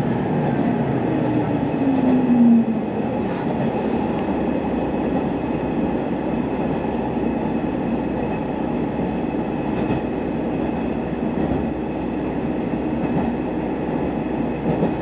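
Sanriku Railway diesel railcar running, heard from inside the car: a steady rumble of wheels and engine, with a brief rising tone about two seconds in.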